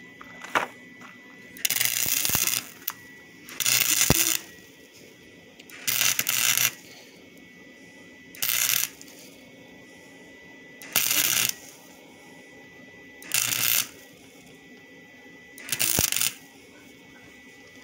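Electric arc welder laying short welds in bursts: seven crackling bursts, each under a second, about every two seconds.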